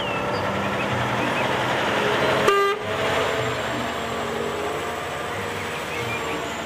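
Concrete mixer truck driving past with its diesel engine running steadily, and a short horn toot about two and a half seconds in.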